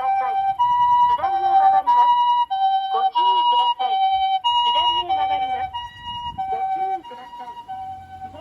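Japanese ambulance's electronic two-tone siren, alternating a high and a low tone, each held about half a second, in the steady pee-po pattern of an emergency run. It grows fainter near the end.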